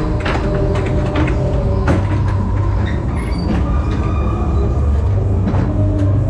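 Ghost train car rolling along its track: a steady low rumble from the wheels, with a few sharp knocks and clacks along the way.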